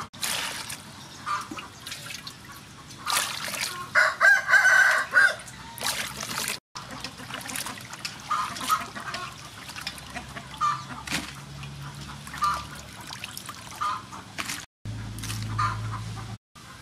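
Water splashing and sloshing in a stainless steel bowl as river prawns are rinsed by hand. A rooster crows for about a second and a half starting about four seconds in, with chickens clucking in the background.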